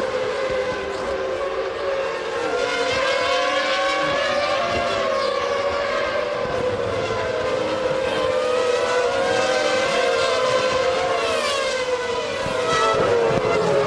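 Several 1997 Formula One cars' engines running at high revs, their overlapping whines rising and falling in pitch as the cars shift gears and pass by.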